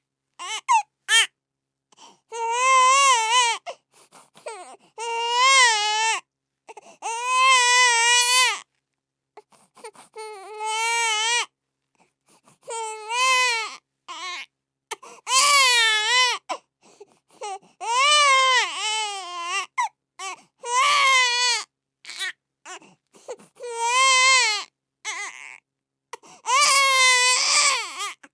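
Baby crying sound effect: about a dozen high, wavering wails, each one to two seconds long, broken by short gaps and brief catching sobs.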